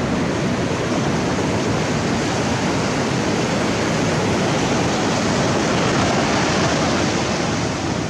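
Shallow ocean surf washing in over a flat sandy beach, a steady rush of foaming water.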